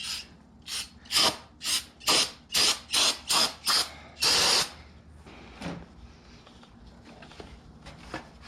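Aerosol brake cleaner sprayed in a string of short hissing bursts, about two a second, ending in one longer spray about halfway through, washing spilled oil off the motorcycle's exhaust headers.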